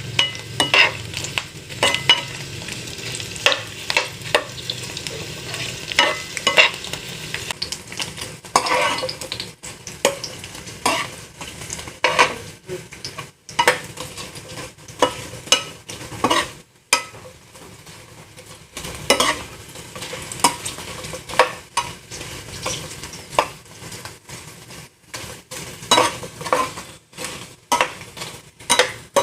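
Vegetable crackers frying in hot oil: a sizzle with many sharp, irregular pops and crackles.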